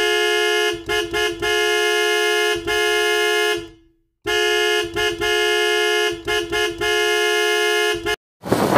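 Car horn honking over and over in a mix of quick toots and long held blasts, with a short break about four seconds in. It stops suddenly near the end.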